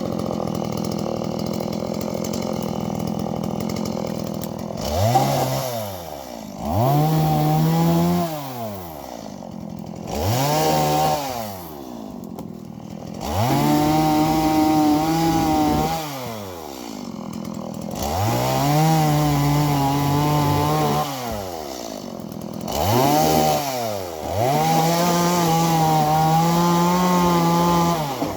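Chainsaw cutting firewood: the engine runs steadily for the first few seconds, then is revved up and eased off about six times, its pitch rising and falling with each pull of the throttle.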